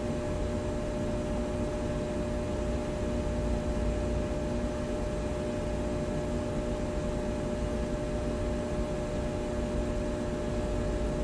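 Room tone of a large machine shop: a steady electrical transformer buzz with several fixed pitches over a low rumble of distant traffic, with no distinct events.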